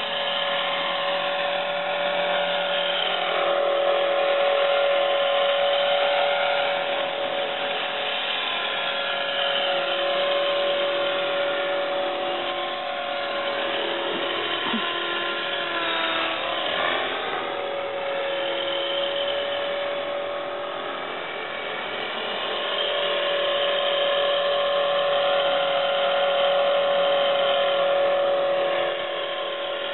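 Exceed Blue Ray 450-size electric RC helicopter's motor and rotor whining steadily in flight, its pitch dipping briefly and recovering about halfway through, and its loudness swelling and easing as it moves.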